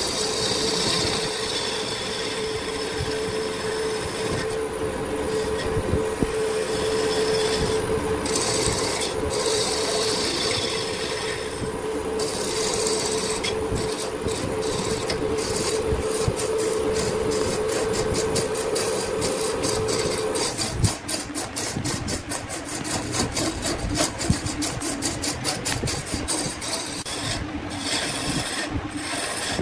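Wood being worked on a woodturning lathe: continuous rasping scrape of a tool against the spinning wood over a steady machine hum. About two-thirds of the way through the hum stops and a rapid run of clicks follows.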